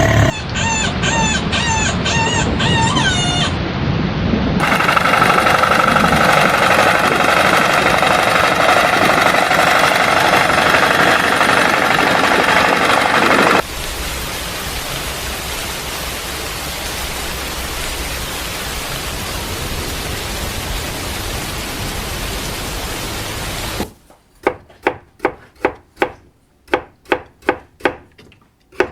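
A run of sound effects. Repeated short chirping calls come first, then a long stretch of dense noise that falls to a steadier, quieter hiss about 14 seconds in. From about 24 seconds comes a rhythmic chopping of a knife on a cutting board, about two strokes a second.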